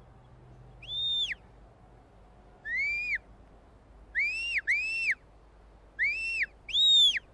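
Shepherd's whistle commands to a working sheepdog: six short whistled notes, each rising, holding and falling off. A high note comes about a second in, lower notes follow with a quick pair near the middle, and a high note comes again near the end.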